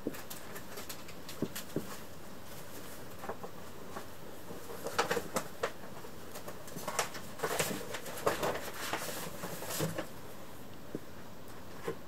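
Kittens squirming in a heap on a cushion and pet sheets: soft scattered rustles and small muffled sounds over a steady hiss, busiest about five seconds in and again from about seven to ten seconds in.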